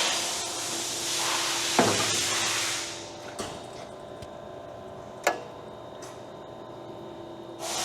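Hyd-Mech S-23 band saw with a steady hissing noise that dies away about three seconds in, leaving a steady machine hum. Two sharp knocks come about two and five seconds in, and the hissing starts up again near the end.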